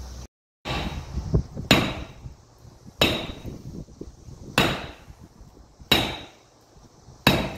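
Sledgehammer blows driving a bearing onto the planetary hub of a Tigercat skidder axle: five heavy strikes about a second and a half apart, each with a short metallic ring. A few lighter knocks come about a second in.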